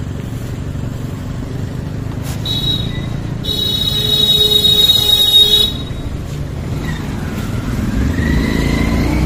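Motorcycle engine running at low speed, with a vehicle horn honking over it: a short toot about two and a half seconds in, then a longer blast of about two seconds that cuts off sharply.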